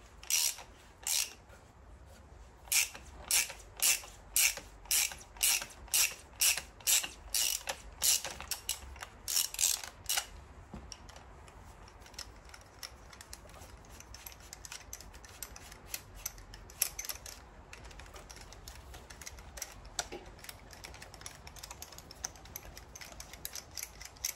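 Hand ratchet wrench clicking as it works a bolt, in sharp strokes about two a second for roughly ten seconds, then only faint scattered clicks.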